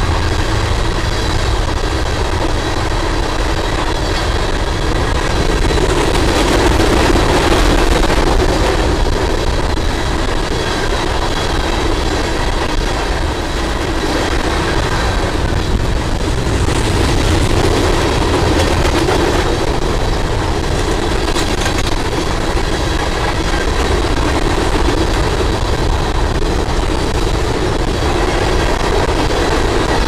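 A freight train of coal hopper cars rolling past close by, its wheels running on the rails in a loud, steady noise.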